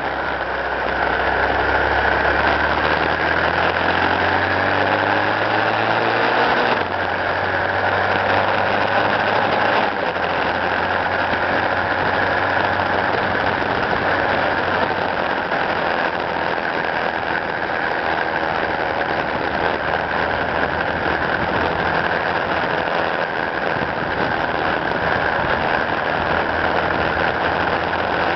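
Engine of the vehicle carrying the camera, rising in pitch as it accelerates for about seven seconds, then running steadily at cruising speed with road noise.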